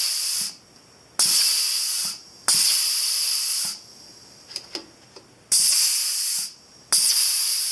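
Compressed air hissing in five bursts of about a second each, blown into the drawbar cylinder of a 1989 Fadal VMC 4020 CNC mill spindle head to make the drawbar move.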